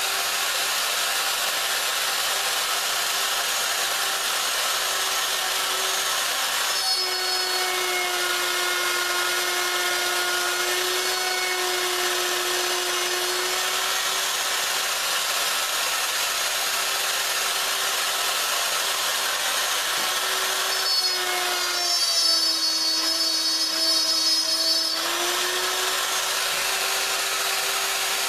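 Plunge router running steadily at high speed while routing a mortise in a wooden rail. Its whine drops in pitch twice for several seconds as the bit takes load in the cut, the second time louder. Near the end it starts winding down as it is switched off.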